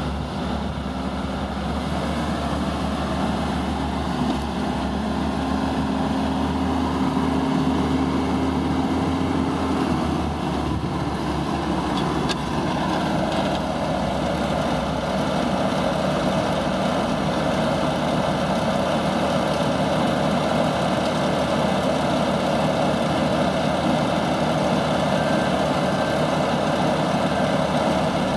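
2007 Ditch Witch XT1600 crawler loader's engine running steadily. About twelve seconds in, its sound turns brighter and busier.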